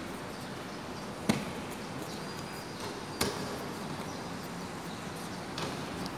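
Badminton rackets tapping inflated balloons upward: sharp single taps, three clear ones about a second and a half, three and five and a half seconds in, the first the loudest, with fainter taps between, over steady background noise.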